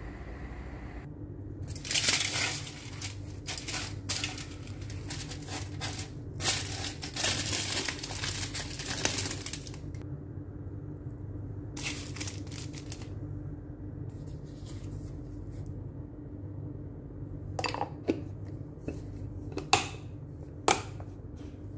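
Aluminium foil crinkling and tearing in irregular bursts as food is wrapped in it, over a steady low hum. A few sharp clicks come near the end.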